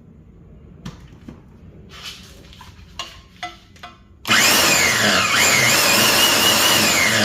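A few light clicks and knocks, then about four seconds in a Harbor Freight portable band saw starts abruptly, switched on by a foot switch, and runs loud, cutting, with a whining tone that rises and falls.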